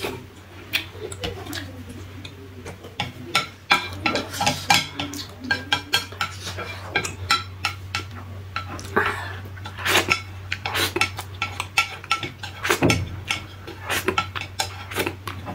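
Chopsticks clicking and scraping on a plate in many short, irregular taps while picking up the last spicy ramen noodles, with slurping near the end.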